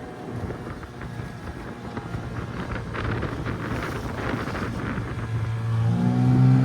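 Small tiller-steered outboard motor on a dinghy running at low throttle, then opened up about five seconds in, its note rising and getting louder. Wind buffets the microphone.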